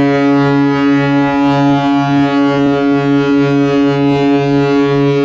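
Cruise ship Europa's horn sounding one long, loud, steady low blast, rich in overtones, with a slight regular wavering.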